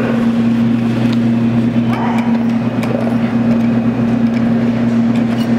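Steady low mechanical hum at one constant pitch, with faint voices in the background.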